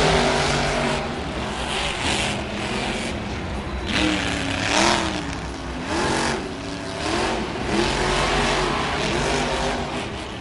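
Monster truck engines racing around a dirt track, revving up and down again and again in rising and falling sweeps of pitch.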